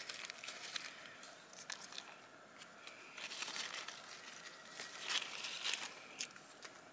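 Faint rustling and crackling of dry leaves and ground litter being disturbed, in scattered short bursts with small clicks.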